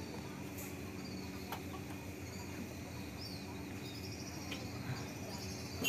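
Quiet workshop background: a steady low hum with a few faint high chirps in the second half, and a few small clicks from handling the PVC-pipe drill body and its wires.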